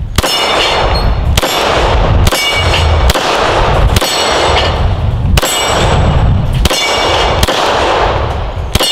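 Canik TP9SFx 9mm pistol fired about nine times at a slow, uneven pace of roughly one shot a second. Each shot is followed by a high metallic ring from the steel targets being hit.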